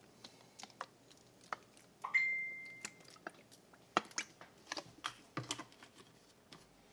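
Faint scattered clicks and light taps of kitchen handling as olive oil is drizzled from a glass bottle over chicken on a parchment-lined sheet pan. About two seconds in comes one sharp ringing tone that fades over about a second.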